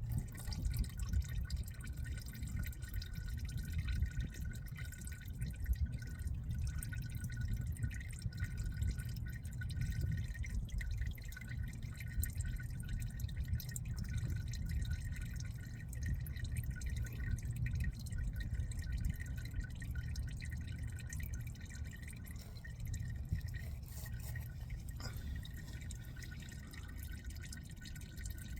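Hot, thin engine oil draining from a car's oil pan, running and dripping steadily into a drain pan.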